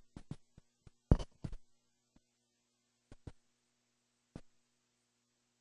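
A few scattered sharp clicks and knocks at irregular intervals, the loudest about a second in, over a faint steady hum.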